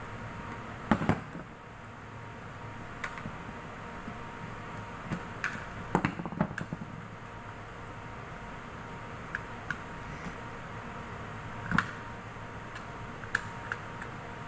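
Sharp plastic clicks and knocks from a DIN-rail signal isolator's housing being squeezed and pried at with a small screwdriver, its case latches not letting it open fully. The loudest clicks come about a second in and around six seconds, over a faint steady hum.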